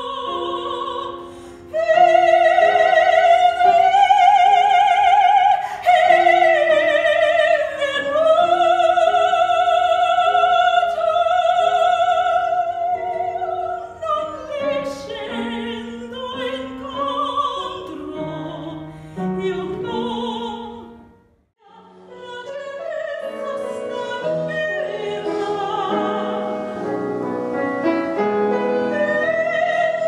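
A woman singing an opera aria over piano accompaniment, holding long notes with a wide vibrato. The sound drops out briefly about two-thirds of the way through, then another passage begins with fuller accompaniment.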